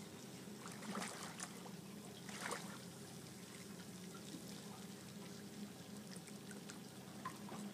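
Light water splashing and trickling, strongest twice in the first few seconds, over a faint steady low hum.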